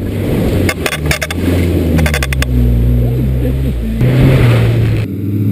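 1989 Jeep Wrangler's engine running under throttle off-road, its note shifting and rising about four seconds in. Two short clusters of sharp rattling clicks come about one and two seconds in.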